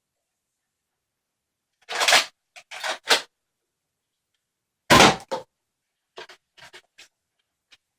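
Nerf Mega foam-dart blaster being worked and fired during target shooting: a few quick clacks about two to three seconds in, a single loud hard thud about five seconds in, then several light clatters.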